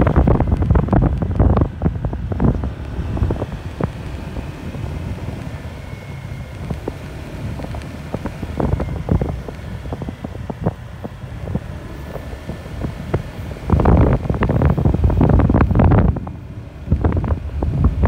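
Wind buffeting on the microphone of a moving vehicle, with engine and road noise running underneath. The buffeting comes in rough gusts, heaviest in the first couple of seconds and again about three-quarters of the way through, easing in between.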